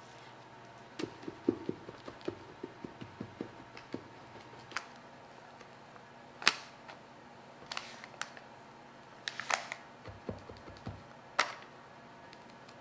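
A spatula scraping thick shredded-coconut batter out of a glass bowl and then spreading it in a parchment-lined square baking pan. There are soft wet dabs in the first few seconds, then scattered sharp clicks and taps as the spatula meets the pan and parchment, and a few low thumps about ten seconds in.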